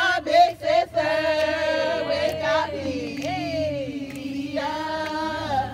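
A group of voices singing together in long held notes, with the pitch sliding downward a couple of times partway through.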